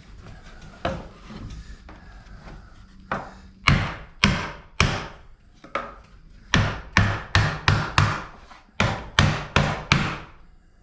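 Wooden beehive parts being knocked into place: a little rubbing of wood, then a quick run of sharp wooden knocks, about two a second, starting a few seconds in.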